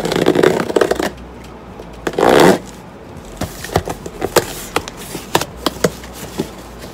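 Scissors cutting a cardboard parcel open: dense scraping and crackling at first, a short loud rip about two seconds in, then a run of sharp, irregular clicks and crinkles as the packaging is handled.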